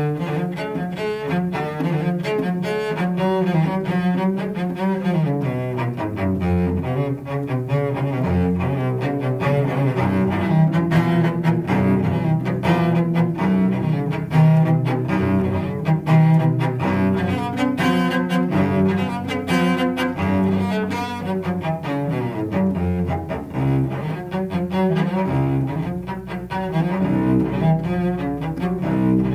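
Cello played with a bow: a continuous line of sustained, changing notes.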